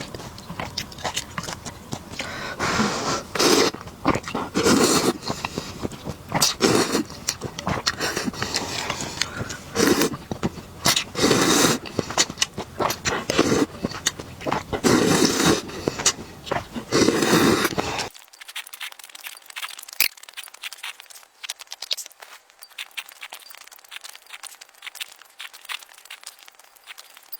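Close-up eating sounds of boiled instant noodles: a run of noisy slurps, each about a second long. About two-thirds of the way through, the sound changes abruptly to quieter chewing with small clicks.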